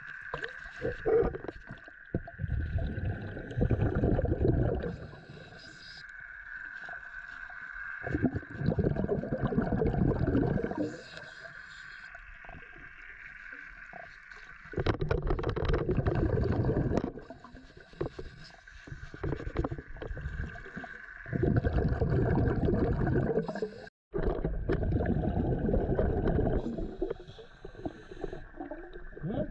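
Scuba diver's regulator breathing heard underwater: a burst of exhaust bubbles lasting two to three seconds about every six seconds, with quieter inhalations between. A steady high-pitched hum runs underneath.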